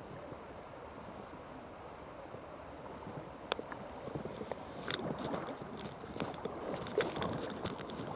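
Steady rush of river water, then from about three and a half seconds in, irregular splashing and sloshing of water close to the microphone, with sharp clicks, growing louder towards the end.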